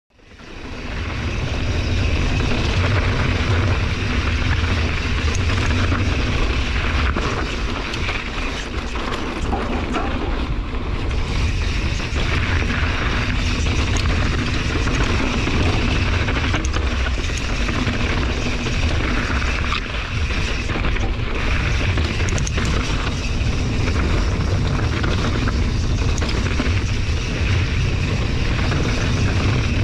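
Wind rushing over the action camera's microphone with a heavy low rumble, together with a mountain bike's knobby tyres running over a dry, rocky dirt trail and the bike's scattered rattles and clicks over bumps on a fast descent. It fades in over the first second.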